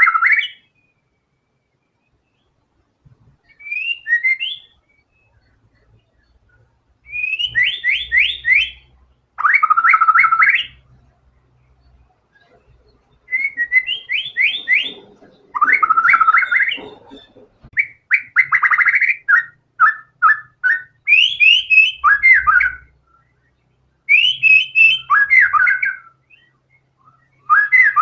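White-rumped shama (murai batu) singing vigorously in bursts of rapid, varied whistled phrases, each a second or two long with short pauses between. The phrases are drawn from its repertoire of learned song material.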